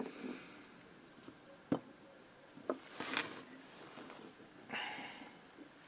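Quiet workbench handling sounds on a moped engine: two light clicks of small metal parts, and a couple of brief rustles of a shop rag being worked around the piston.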